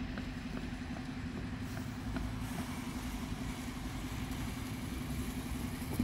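A vehicle engine running steadily with a low hum, and a few faint clicks during the first couple of seconds.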